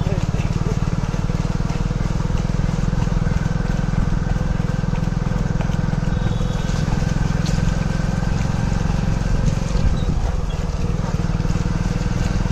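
Vehicle engine running steadily at a low, even speed, its rapid firing pulses dominating the sound.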